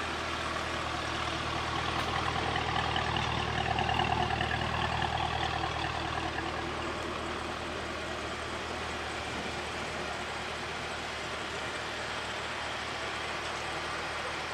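Cadillac CT5-V sedan's engine running low and steady, swelling a little about three to five seconds in, then settling back.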